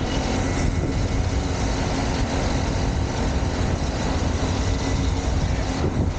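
A motor vehicle's engine running steadily with a low rumble as it travels along a street.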